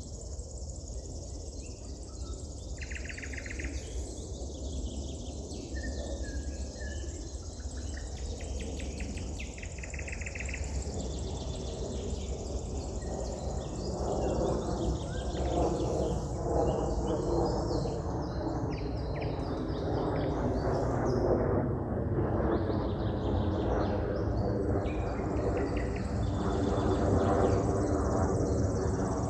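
Wild birds singing in short chirping phrases over a steady outdoor background noise. About halfway through, a louder, rougher background sound comes up beneath the birds.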